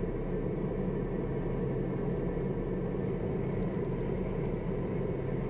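Steady in-flight cabin noise of the Piper M500's single Pratt & Whitney PT6A turboprop engine and propeller: an even rumble with a low hum, plus a faint thin high tone.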